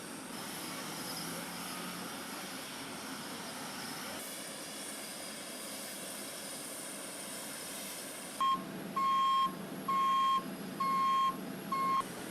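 Steady vehicle noise, then a reversing alarm sounding five beeps about a second apart in the last few seconds. The beeps are the loudest sound.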